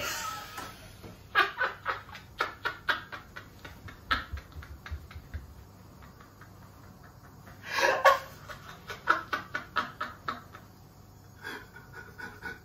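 A man laughing in two long bouts of rapid ha-ha pulses, the second beginning with a louder burst about 8 seconds in.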